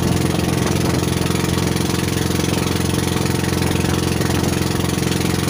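A motorized outrigger boat's engine running steadily, with a constant even drone and no change in speed.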